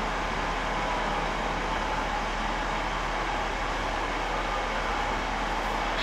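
Steady fan-like hiss with a low hum underneath: the background noise of a darkened room while a silent film is projected.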